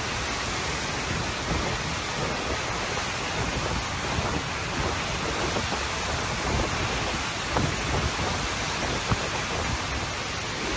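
Steady, even rush of tropical-storm rain and wind, with a rumbling low end that rises and falls. There is a single sharp knock about nine seconds in.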